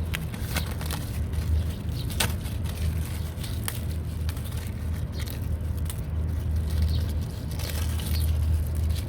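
Crinkling and crackling of the foil layers of a torn-open iPhone 7 battery cell being handled and pulled apart, irregular sharp crackles over a steady low hum.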